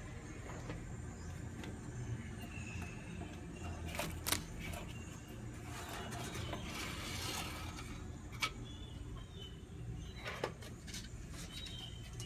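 Faint steady low hum with a few sharp, isolated clicks and a brief rustle about six to seven seconds in, the sort of handling and scraping noise made close to a lizard's enclosure.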